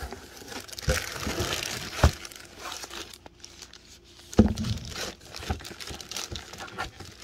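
Thin clear plastic wrapping crinkling as a boxed coin album inside it is handled and lifted out of a cardboard box, with a few sharp knocks; the loudest is about four and a half seconds in.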